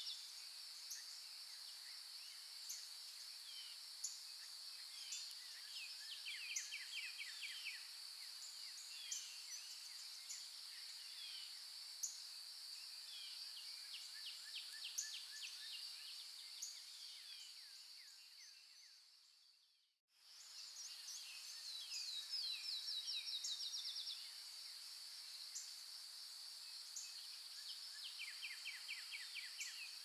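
Field ambience: a steady high-pitched insect drone, with small birds chirping and giving quick trills of repeated notes over it. About two-thirds of the way through, the sound fades out to silence for a moment, then fades straight back in.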